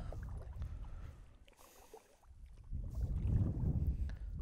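Wind buffeting the microphone: a low, uneven rumble that dies down around the middle and picks up again about three seconds in.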